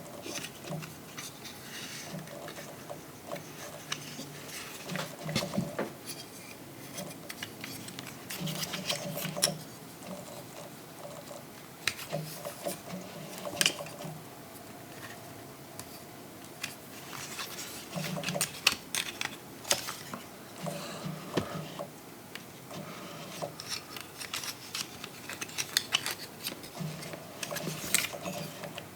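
Plastic parts of a Transformers action figure clicking and rattling as it is handled, with many irregular sharp clicks and short duller rubbing sounds between.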